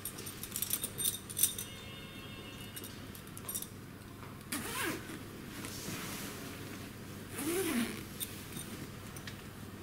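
Zipper on a padded fabric chair cover being fastened, with rustling of the heavy cloth, in a few short, quiet bursts: one just after the start, one around the middle and one near the end.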